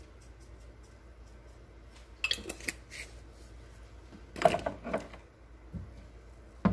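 Kitchen dishes and utensils knocking and clinking in two short bursts, about two seconds in and again about four and a half seconds in, with one more knock at the very end.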